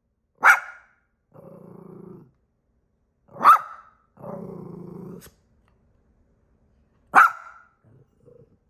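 A dog barking sharply three times, about three seconds apart, with a low growl of about a second after each of the first two barks and a short soft grumble near the end.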